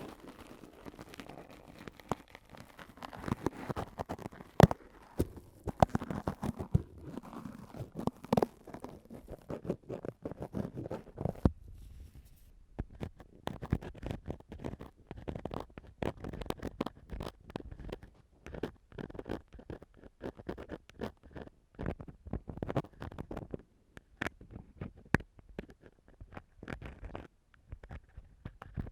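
Ear-cleaning tool (metal ear pick or cotton swab) scratching and scraping on a microphone for ASMR: close, crackly scratches with irregular sharp clicks. For about the first twelve seconds there is a deeper rubbing sound under the scratches; after that the scratches are sharper and more separate.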